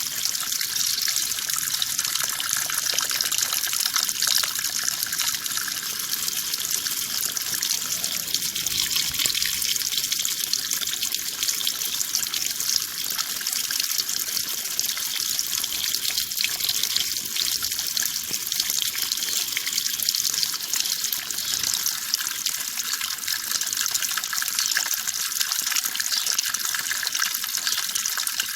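Water running steadily: an even, continuous rushing hiss with no pauses or changes.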